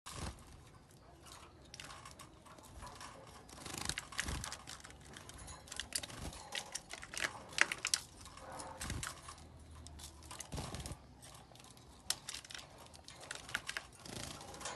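Irregular clicks, taps and rustling from canaries moving about in a wire cage.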